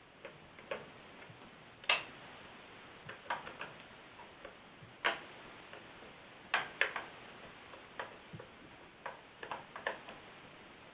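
Irregular light clicks and knocks of hand tools and plastic parts being handled while a chainsaw is taken apart, about a dozen in all, the sharpest about two and five seconds in, over a faint steady hiss.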